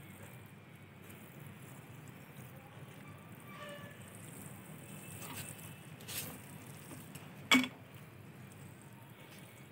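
Water from a watering can's sprinkler rose falling on loose potting soil in a grow bag, a soft steady patter. A single sharp click about three-quarters of the way through is the loudest sound.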